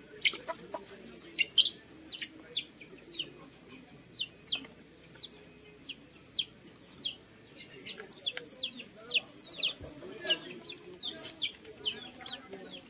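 Chickens peeping: a steady run of short, high chirps, each falling in pitch, about two a second.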